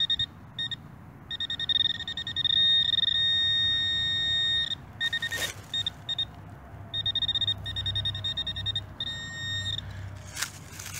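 Handheld metal-detecting pinpointer sounding off as it is probed in a freshly dug hole: a high electronic buzz in short pulses, held unbroken for about three seconds early on and then broken into rapid beeps, its signal that metal is close to the tip. A sharp tick about halfway through and another near the end.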